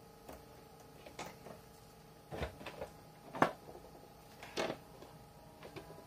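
A string of about eight light clicks and knocks as multimeter test probes are handled against the circuit board and plastic housing of an opened electric shower heater, the loudest knock a little past halfway. A faint steady hum runs underneath.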